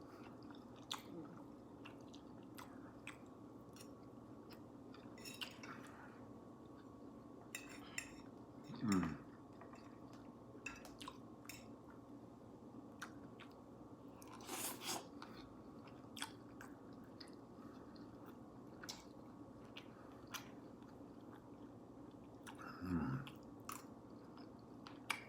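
A person chewing and eating food close to the microphone, with small wet mouth sounds and scattered clicks over a steady low hum. Twice, about nine seconds in and again near the end, there is a short low sound that falls in pitch.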